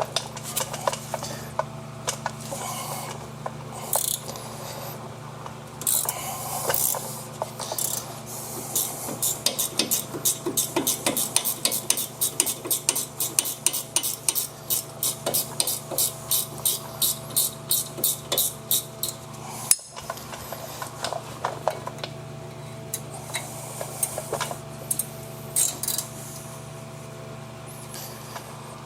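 Hand ratchet clicking in a long run of quick, even strokes, about three or four clicks a second, with metal tool clanks before and after, over a steady low hum.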